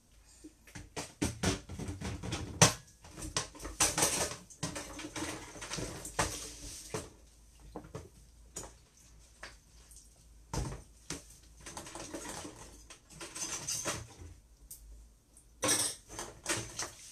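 Dishes being cleared and handled at a kitchen sink: an irregular clatter of bowls, a chopping board and utensils being set down and knocked together.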